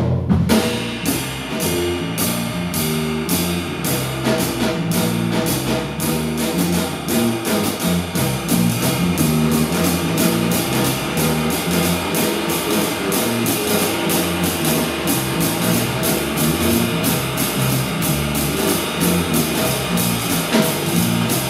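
Electric bass walking a line of even notes together with a Gretsch drum kit keeping steady jazz time on the cymbals, starting abruptly at the outset.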